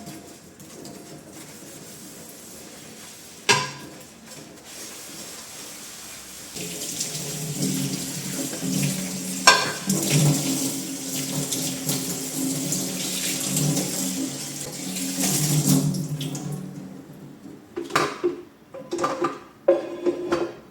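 Kitchen tap running into a sink for about ten seconds, with a sharp knock before it and a clink partway through. Short clatters of dishes follow near the end.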